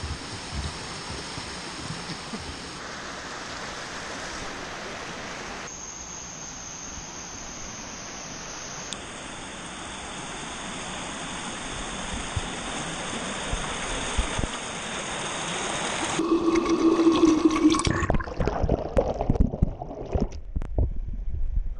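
Steady rushing noise of running water. About sixteen seconds in it turns to a louder, muffled churning of bubbling and gurgling water, recorded underwater.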